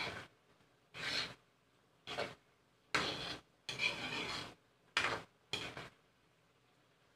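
Spatula scraping and stirring in a cooking pan of chilies and garlic: about seven separate scraping strokes, stopping about six seconds in.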